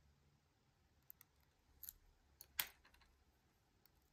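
Faint clicks of a lock pick and tension wrench working the pins of a Harry Bow Chicane challenge lock. There are a few small clicks, then a sharper click about two and a half seconds in, followed by a couple of softer ticks.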